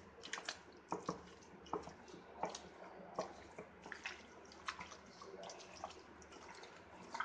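A hand squeezing and mixing chicken pieces in a yogurt-and-spice marinade in a steel bowl: irregular short wet squelches and clicks, a few each second.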